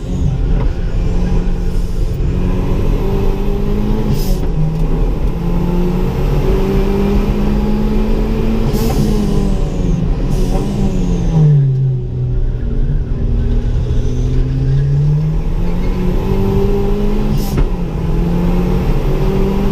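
Ford Ka track car's engine running hard under load, its pitch rising and falling with the throttle. It drops for a few seconds about two-thirds of the way through, then climbs again. A few short sharp clicks sound over it.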